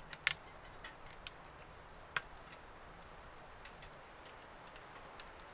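Freshly lit kindling fire crackling inside a closed steel wood stove: a few scattered sharp pops and clicks, the loudest a fraction of a second in and another about two seconds in.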